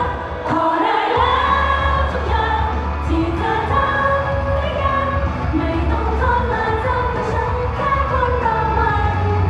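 Thai idol pop song over the stage speakers, with a woman's voice singing the melody over a steady beat and bass. The bass cuts out briefly about half a second in, then comes back.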